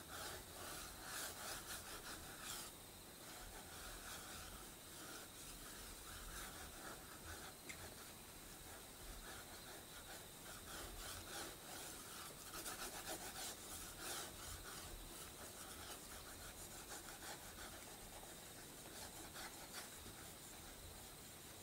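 A stick of dry drawing medium scribbling on sketchbook paper: a faint, quick run of scratchy rubbing strokes, busiest near the start and again midway.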